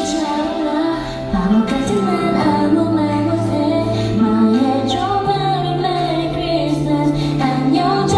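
A woman singing a song over an amplified backing track, with her voice gliding between notes above held bass notes that shift about five seconds in.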